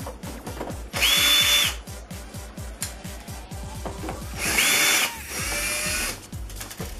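Cordless drill-driver backing a screw out of a computer case, run in two short bursts about a second in and again about four and a half seconds in. Each burst is a motor whine that rises to speed, holds and stops.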